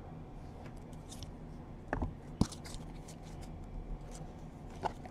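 2017 Panini Certified football trading cards handled and slid against one another in the hands, with faint scrapes and a few short clicks, the sharpest about two seconds in and again near the end.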